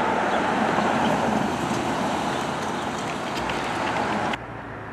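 Road traffic near the crossing: the steady noise of a passing motor vehicle's tyres and engine, which cuts off suddenly about four seconds in, leaving a quieter outdoor background.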